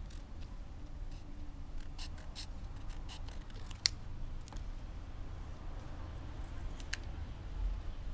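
Scissors snipping through thin cigarette-pack cardboard: a scattering of short, sharp snips, several close together about two seconds in, the loudest near four seconds and another near seven.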